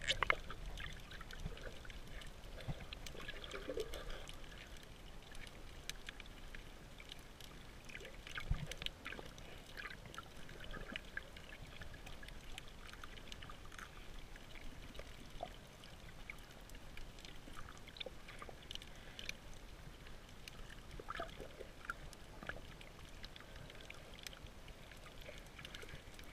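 Underwater ambience heard through a GoPro housing: faint steady water noise with scattered small clicks, and a dull thump about eight and a half seconds in.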